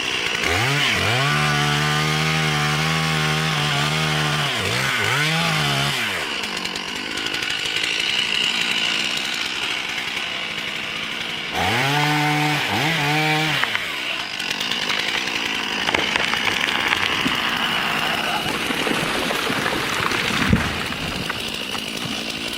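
Two-stroke chainsaw revving up and down in repeated throttle bursts, its pitch rising and falling, then running steadily between bursts with a second spell of revving about halfway through. A single sharp knock comes near the end.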